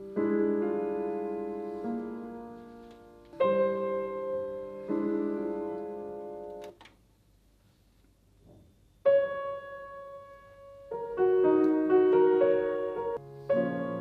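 Solo piano music played back over bookshelf hi-fi speakers: struck chords that ring and fade, a pause of near silence about seven seconds in, then more chords.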